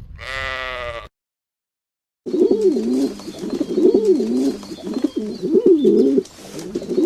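A single short bleat, then after about a second's pause pigeons cooing in a continuous run of low, rolling coos.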